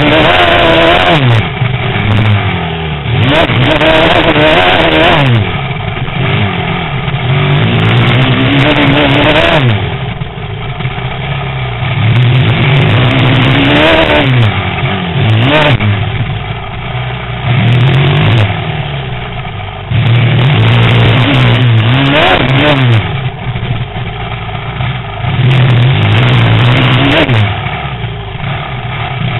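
Motocross bike engine revving hard through the gears around a dirt track lap, its pitch climbing and dropping again and again as the throttle opens and shuts, heard from the rider's own helmet.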